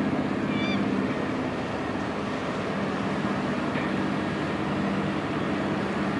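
Fishing boat engine idling in a steady low drone. About half a second in, a brief high-pitched call cuts across it.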